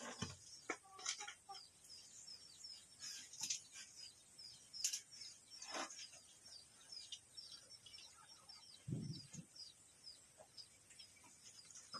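Faint chickens clucking, with many short high chirps running through and a couple of lower calls about three-quarters of the way in.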